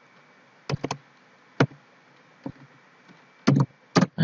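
Computer keyboard keystrokes: about eight separate sharp key clicks at an uneven pace, over a faint steady background hum.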